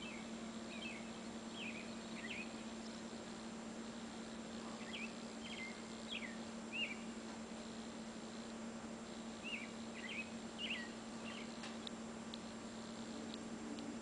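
Small birds outside giving short, quick, high chirps in loose scattered bursts, over a steady low hum.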